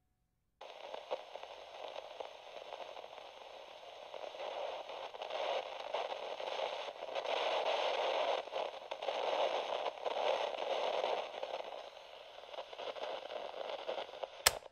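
Radio-style static hiss with crackle, slowly swelling and fading, cut off by a click near the end.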